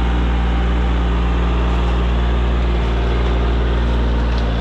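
Compact diesel tractor engine running steadily at a constant speed, loud and close, with a low even hum.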